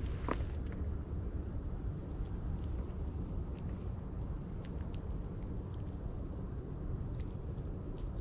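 Insects singing a steady, high-pitched unbroken drone, over a low rumble with a few faint clicks.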